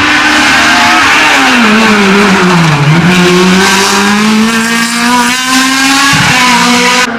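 Hillclimb race car engine at full volume: its note falls for about two seconds as the car comes off the throttle, then climbs steadily as it accelerates hard. The sound cuts abruptly just before the end.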